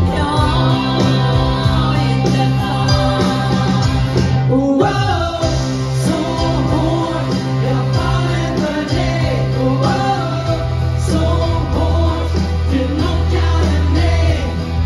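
Live rock band playing, with electric guitars, keyboard and drums on a steady bass line, and singing over the music.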